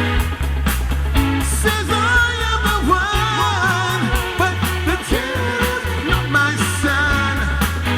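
Live rock band playing: a steady bass and drum beat under a wavering lead melody line.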